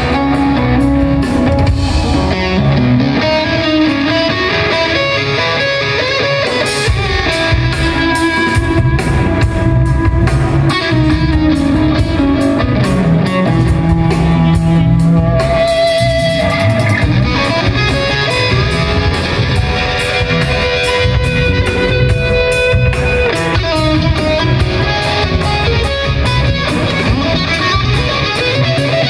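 Live rock performance heard loud from the audience: an amplified electric guitar plays a slow lead line of held notes. A steady drum beat joins about seven seconds in.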